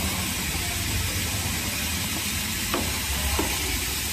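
Cup labeling machine running steadily, a constant hiss over a low hum. Two faint clicks about three seconds in come from the plastic containers being handled.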